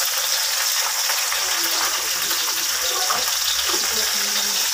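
Steady hiss of water spinach sizzling in hot oil as it is stir-fried in a wok.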